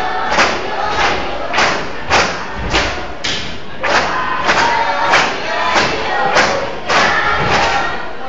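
Poles knocked on a wooden stage floor in a steady beat for a pole-stepping dance, about three knocks every two seconds, with many children's voices over them.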